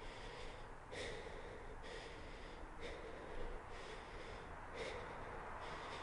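A person breathing heavily and fast, in and out, with about three full breaths. Each inhale and exhale lasts a little under a second.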